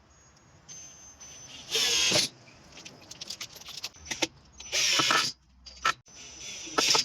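Cordless drill-driver running in two short bursts about three seconds apart, driving screws into the wooden frame, with light clicks and clinks of hardware between them.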